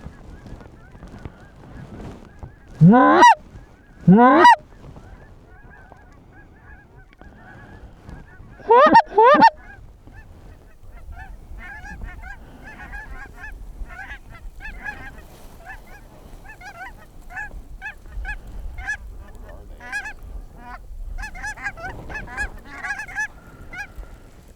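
Geese honking as a flock comes in: four loud, close, rising honks in two pairs, then many shorter, quicker honks from about ten seconds in.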